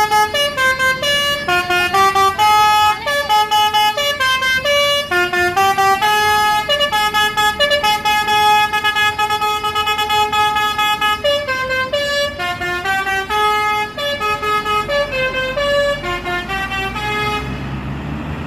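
Basuri horn on a bus: a set of tuned air horns playing a quick melody, note after note, stopping about a second before the end. A low rumble comes up in the last few seconds.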